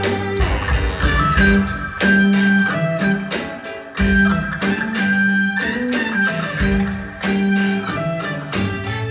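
Live funk band playing: electric guitar over bass guitar and a drum kit keeping a steady beat.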